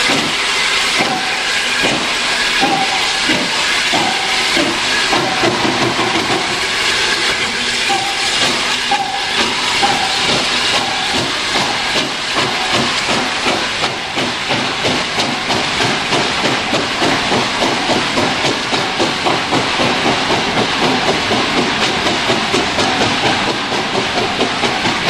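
Hunslet Austerity 0-6-0 saddle tank steam locomotive pulling a passenger train away, with a steady hiss of steam. Its exhaust chuffs start about one a second and quicken to about three a second as it gathers speed.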